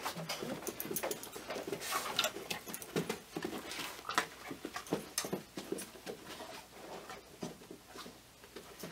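A dog moving around a person with short whines, among many quick clicks and taps.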